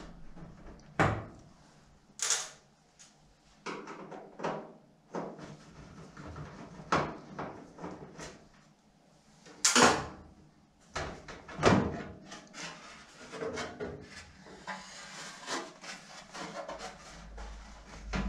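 Irregular knocks, clicks and metallic clatter as the sheet-steel back panel of an electric cooker is worked loose and lifted off, the loudest knocks about ten and twelve seconds in.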